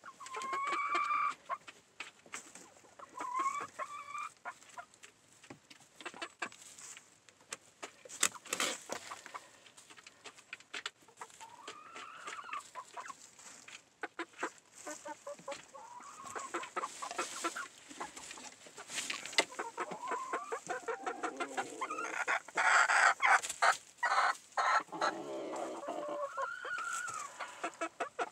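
Hens clucking and giving short, pitched calls, busiest and loudest in the last few seconds, over small scratching and rustling sounds from a hen working the dry leaf-and-shaving bedding of a nest box.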